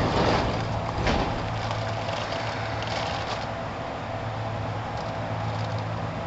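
Inside a Kintetsu 1000 series train standing at its starting station: a steady low hum from the car's onboard equipment, with two short knocks near the start.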